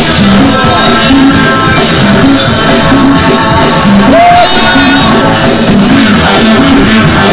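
Loud music with a steady beat.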